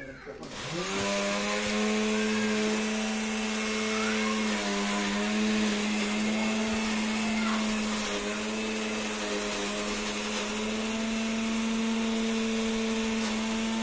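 A small electric motor starting up about half a second in, its whine climbing quickly to a steady pitch with a loud hiss over it. It runs on steadily, wavering slightly a couple of times.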